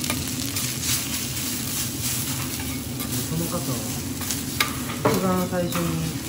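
Rice and raw egg sizzling on a hot steel teppanyaki griddle as metal spatulas stir and chop through it, with many sharp clicks of the blades on the steel. A short pitched sound about five seconds in.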